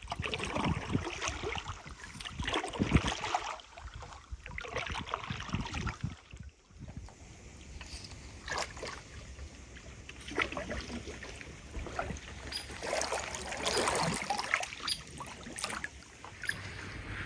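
Double-bladed paddle dipping into calm lake water beside a canoe: irregular swishing splashes and drips every second or two, over a low steady rumble.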